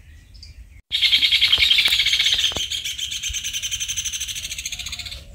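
Birds chirping in a dense, rapid chorus that starts suddenly about a second in and slowly fades before stopping near the end.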